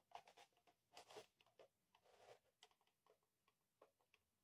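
Near silence, with a few faint small clicks and rustles, clustered about a second in.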